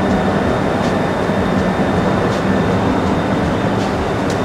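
Steady, loud rumbling background noise with a low hum and no distinct events.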